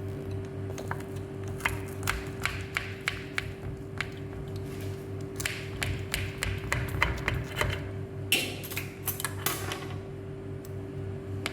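Eating crunchy, toasted-topped cassava cake: a run of sharp clicks and crackles from utensil and crisp crust, with a few longer scraping crackles about eight to ten seconds in.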